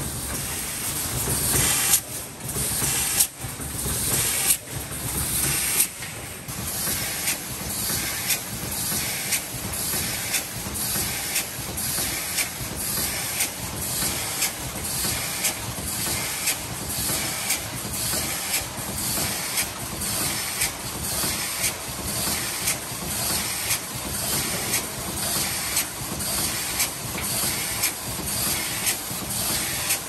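Pneumatic aerosol can filling and crimping machine running, its compressed air hissing in sharp puffs. A few irregular louder puffs come in the first seconds, then the hiss settles into an even rhythm, a little under two pulses a second, as the heads cycle over the cans.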